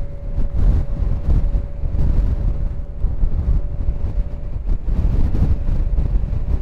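Wind buffeting the microphone on a moving Honda Gold Wing motorcycle, with engine and road noise underneath and a faint steady whine.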